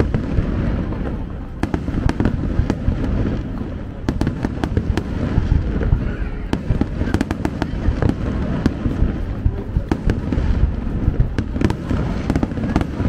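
Aerial fireworks display going off: a continuous low rumble of shell bursts, with frequent sharp crackles and bangs throughout.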